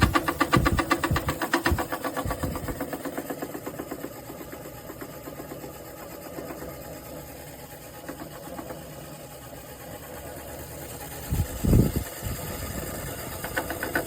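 Kamlam 14000 BTU portable air conditioner running, with a fast, even rattling pulse that is strongest for the first few seconds, fades to a steady hum, and comes back near the end. There is a low thump a little before the end.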